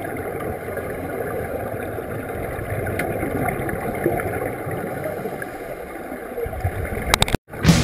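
Steady rushing water noise, with a few sharp clicks near the end and a moment where the sound cuts out completely.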